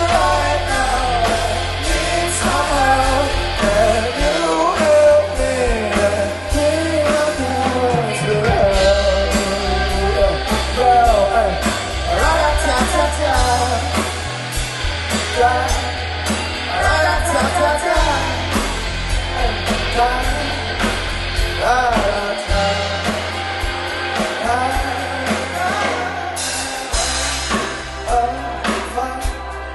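Live rock band playing a song: a lead vocal sung over electric guitars, bass guitar, drum kit and keyboard.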